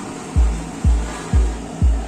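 Background music with a steady deep kick-drum beat, about two beats a second, coming in under half a second in over a steady hiss.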